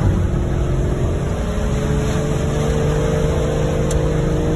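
Road and engine noise heard inside a moving car's cabin. There is a steady low rumble, with an engine hum that slowly rises in pitch as the car speeds up.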